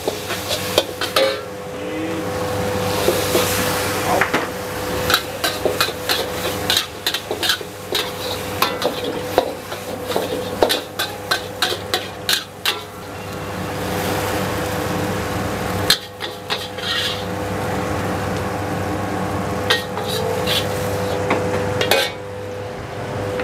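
Metal spatula scraping and clanking against a wok during stir-frying over a gas burner, with food sizzling in hot oil. A steady mechanical hum runs underneath, and the clatter eases a little near the end.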